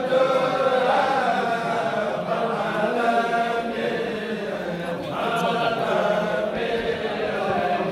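Kourel: a group of men chanting Sufi xassidas (devotional poems) together, in long phrases with short breaks between them.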